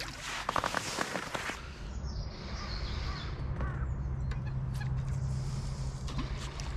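A freshly caught skimmer bream splashing in a keepnet at the water's edge for the first second or so, then crows cawing a few times in the background.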